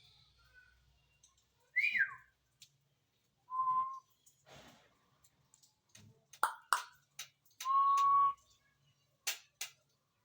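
Ringneck parrot whistling and calling in separate short bursts: a falling whistle about two seconds in, two held steady whistles, and several short sharp calls.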